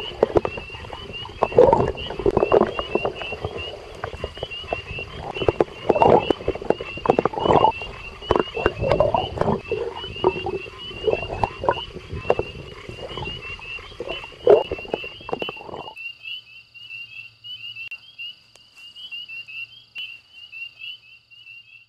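A chorus of frogs calling. Rapid high chirping runs throughout, over a lower, louder croaking that stops abruptly about 16 seconds in, leaving only the chirping.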